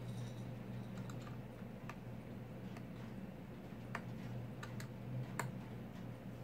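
Small screwdriver working the tiny screws on the aluminium bottom case of a MacBook Pro A1278: a few faint, irregular light clicks over a steady low hum.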